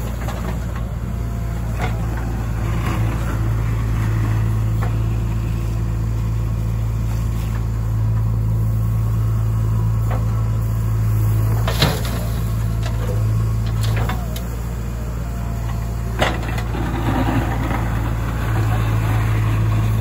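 Diesel engine of a JCB 3DX backhoe loader running while the backhoe works, its note rising and falling in stretches as the hydraulics take load. Two sharp knocks, about twelve and sixteen seconds in.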